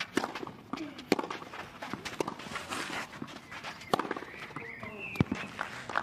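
Tennis rally on a clay court: a ball struck by rackets with sharp pops about once a second, with light scuffing of players' shoes on the clay between shots.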